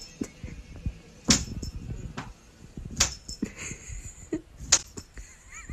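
Three sharp slaps about a second and a half apart, made during hand-and-paw play between a cat and a person at a wall corner. A faint, short, wavering squeak comes near the end.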